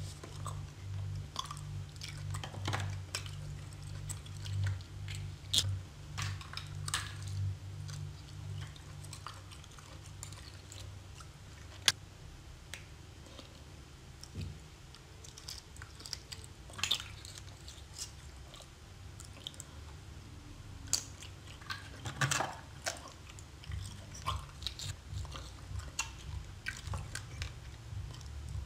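Close-miked chewing of seafood, with wet mouth sounds and many small clicks, and one sharp click about twelve seconds in.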